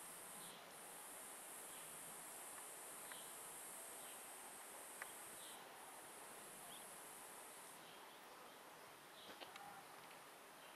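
Faint, steady high-pitched insect drone in trees, breaking off briefly twice and stopping about three-quarters of the way through, with a few faint short chirps.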